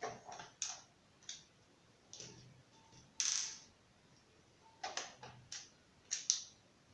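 Irregular clicks and short scrapes of small laptop parts being handled during a hard-disk swap, the loudest a brief scrape about three seconds in.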